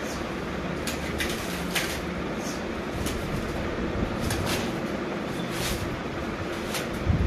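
Plastic and foam packing wrap rustling and crinkling in short, sharp crackles as it is pulled off a new bicycle frame, over a steady background rumble. A low thump comes near the end.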